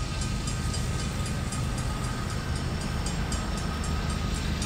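CSX freight train rolling past on the rails: a steady low rumble with a light, rapid, regular ticking of about three a second and a faint steady whine.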